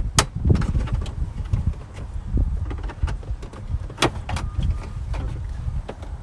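Knocks, rubbing and clicks of hands working on a car's interior trim, with two sharp clicks: one just after the start and one about four seconds in.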